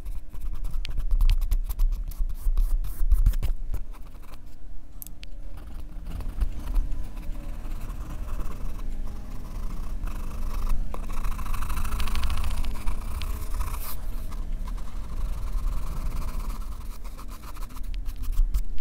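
Pencil scratching on drawing paper. The first few seconds are quick, short hatching strokes; around the middle come longer, denser shading strokes.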